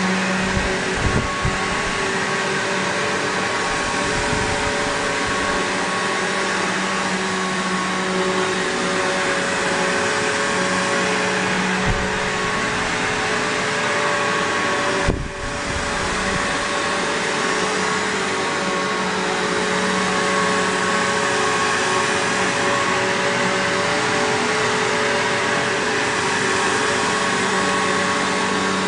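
Bissell PowerGlide Platinum (3545-2) upright vacuum cleaner running steadily: a constant whir with several held tones. A few brief low thumps come through, and the sound dips briefly about halfway through.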